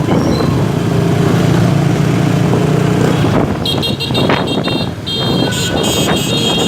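Motorbike and car engines running in dense street traffic, with a high-pitched horn honking in quick repeated blasts starting about halfway through.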